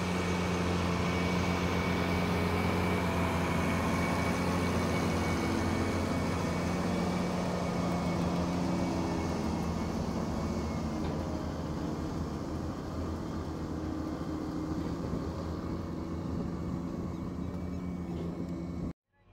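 John Deere 8760 four-wheel-drive tractor's diesel engine running steadily while pulling a dirt scraper past, growing somewhat fainter as it moves away. The sound cuts out abruptly near the end.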